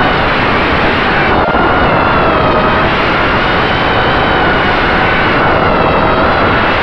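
FPV quadcopter's brushless motors and propellers running in flight, heard from the onboard camera: a steady whine that wavers up and down in pitch with the throttle, over a loud rush of prop wash and wind.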